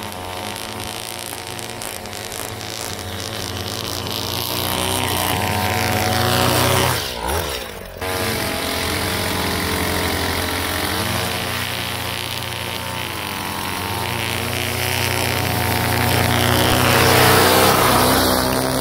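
Gas string trimmer with an Edgit Pro edging guide running while edging a lawn, its engine rising and falling in speed, with a short break about seven seconds in.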